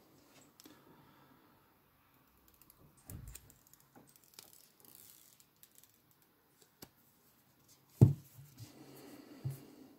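Hands handling a rugged smartphone and picking at the protective film on its screen: faint rubbing and small clicks, with a sharp knock about eight seconds in and a softer one near the end.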